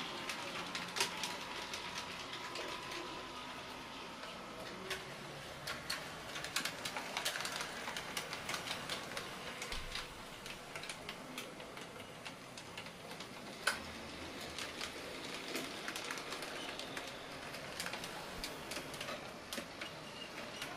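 HO scale model trams running on the layout: a faint motor hum as a tram passes close during the first few seconds, and many light, irregular clicks of small wheels on the track.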